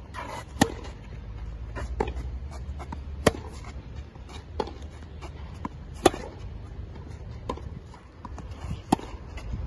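Tennis rally: racket strings striking the ball in sharp hits about every one and a half seconds, alternating louder and fainter as the ball goes back and forth between the two players.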